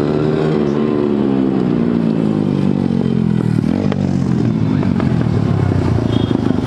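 Motorcycle engine running loud, its pitch falling steadily for about three seconds as it slows, then rising sharply again briefly before settling into a rough, uneven running note.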